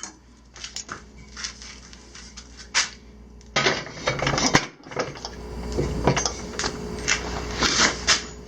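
Metal clinks and clatter of steel workpieces and hand tools being handled and set down, getting busier and louder about three and a half seconds in.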